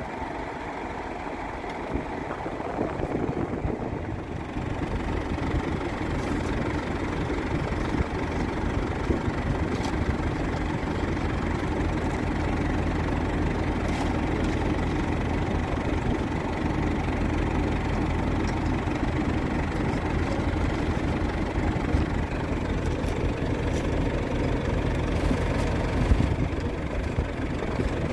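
Heavy farm-vehicle engine running steadily, getting a little louder about four seconds in, with a few faint clicks over it.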